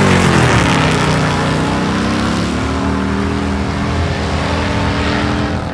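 Racing vehicle engines running hard on a sand drag strip. The pitch drops at the start, then climbs steadily for several seconds as they pull, and the sound cuts off suddenly near the end.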